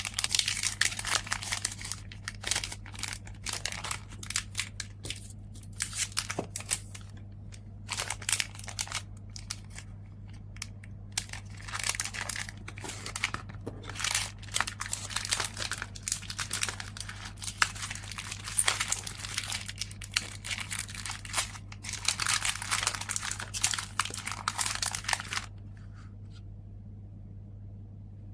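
Packaging being handled while an order is packed by hand: dense crinkling and rustling with small clicks, which stops about three seconds before the end. A steady low hum runs underneath.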